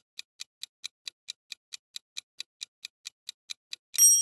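Countdown timer sound effect: quick, even clock ticks, about four to five a second. Near the end a bright bell ding rings out and fades, marking the end of the countdown.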